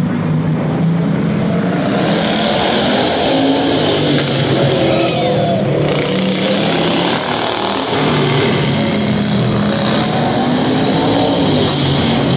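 Racing riding lawn mower engines running and revving as the mowers lap the track, their pitch rising and falling, inside an indoor arena.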